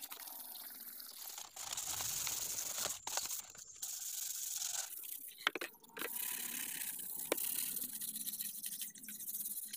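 Sandpaper rubbed by hand over PVC pipe, a dry scratching in repeated strokes with short pauses between them, and a couple of sharp clicks.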